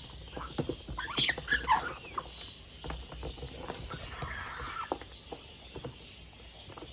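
Baby African grey parrot chick making short squeaky calls, clustered about a second in, among many soft clicking sounds.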